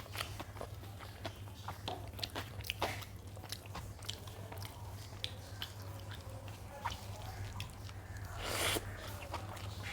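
Close-miked chewing and eating sounds as rice, daal and omelette are eaten: soft wet mouth clicks and smacks at an irregular pace, over a steady low hum. One brief, louder noise comes about eight and a half seconds in.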